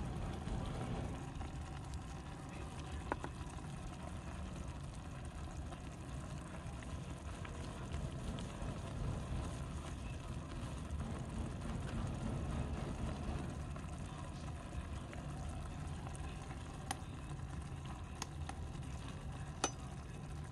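Broth with vegetables simmering in a small wok over a miniature wood fire, a steady bubbling over a low rumble. A few sharp clicks stand out, two of them near the end as a spoon goes into the wok.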